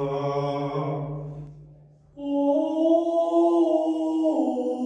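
Male voices chanting like monks in long held notes. The first chant fades out about a second and a half in, and a fresh held note starts just after two seconds, dipping in pitch near the end.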